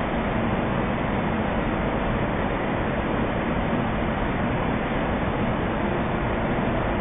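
A locomotive standing at the head of a passenger train, its machinery running with a steady, even noise.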